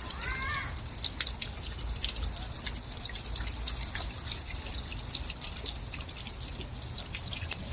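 Water spilling from a small waterwheel: a steady trickling splash with many quick drips and droplet hits.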